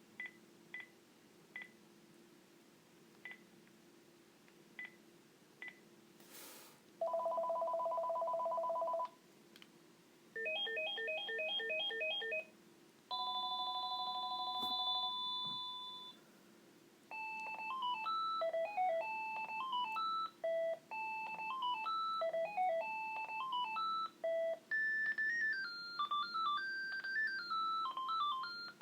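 Panasonic KX-TGA931T DECT 6.0 cordless handset: a few short beeps, then its ringtones played one after another from about seven seconds in. First a steady electronic two-tone ring, then a fast pulsing ring, then another steady two-tone ring. From about seventeen seconds a stepping electronic melody plays.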